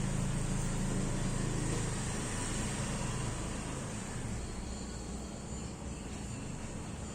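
A low hum that fades away about two seconds in, leaving a steady background hiss.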